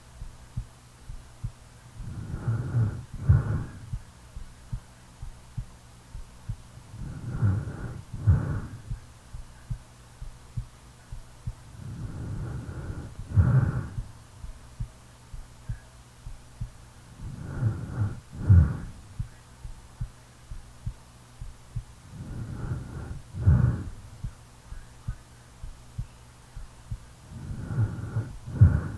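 A sleeping person's heartbeat thudding steadily, a little faster than once a second, with a snoring breath about every five seconds.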